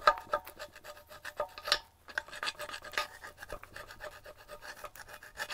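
Hand scraping and scrubbing strokes on the Reliant engine block as it is cleaned by hand, several quick rasping strokes a second with a faint metallic ring, pausing briefly about two seconds in.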